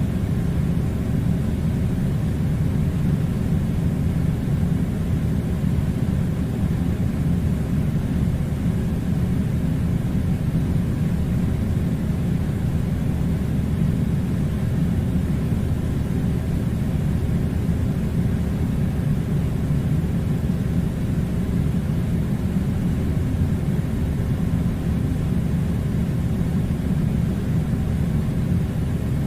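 Air conditioner running with a steady low rumbling noise that does not change.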